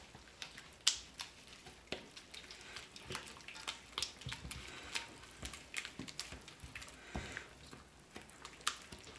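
Silicone spatula stirring a wet mix of melted butter, beaten eggs, chopped onion and celery in a stainless steel mixing bowl: soft irregular squishing and scraping with many light clicks.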